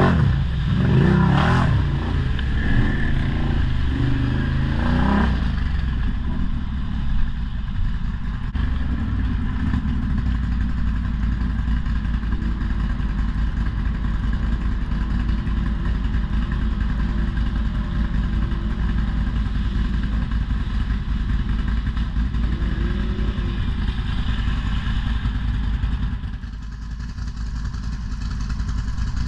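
ATV engine running under way, revving up and down for the first few seconds, then settling into a steady low rumble; it eases off briefly near the end before picking up again.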